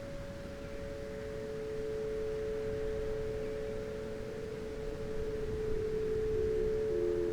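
Whelen Vortex outdoor warning siren sounding the steady alert signal as a two-note chord. In the second half the lower note sags in pitch while the upper note holds.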